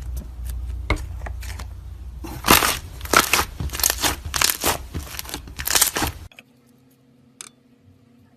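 Slime being squeezed and pressed by hand, giving a quick run of crackling, popping squelches that cuts off abruptly about six seconds in. After the cut a faint steady hum remains, with one click.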